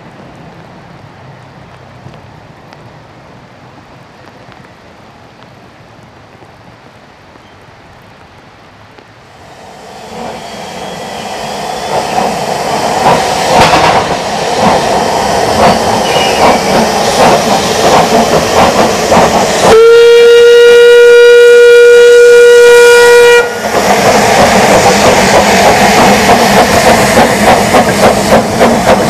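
Narrow-gauge steam locomotives, a Double Fairlie piloted by a small tank engine: at first a train is heard faintly moving off, then loud hissing steam and exhaust close by from about ten seconds in. About twenty seconds in a steam whistle blows one steady note for nearly four seconds, and then the hiss and pulsing exhaust carry on.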